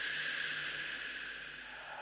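Eerie whispered breathing: a long, hissing breath that slowly fades, then a new, louder breath begins near the end.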